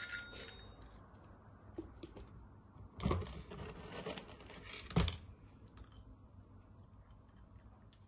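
A desk service bell rings once at the very start, struck by the cat's paw, its tone dying away within about half a second. About three seconds in, dry food rattles into a plastic bowl for around two seconds, ending with a sharp knock.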